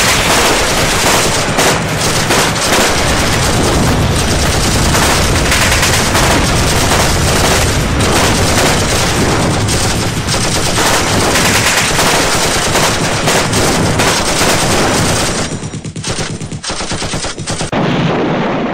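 Sustained rapid gunfire, overlapping machine-gun bursts and shots, thinning briefly near the end and then cutting off abruptly.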